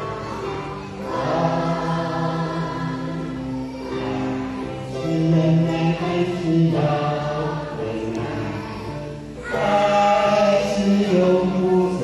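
A group of young children singing a song together as a choir, in long held phrases that swell louder about halfway through and again near the end.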